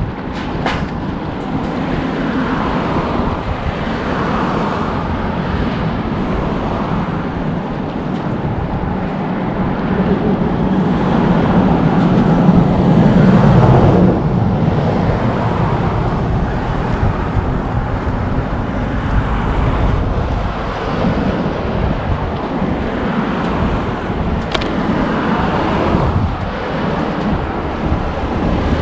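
Wind buffeting the microphone over a steady hum of passing road traffic, with one vehicle swelling louder around the middle and then falling away suddenly.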